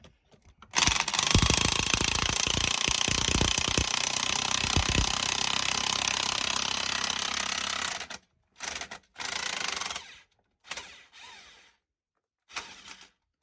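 Bead breaker driving a tractor tire's bead off the rim, with rapid mechanical hammering in one long burst of about seven seconds. Three short bursts follow.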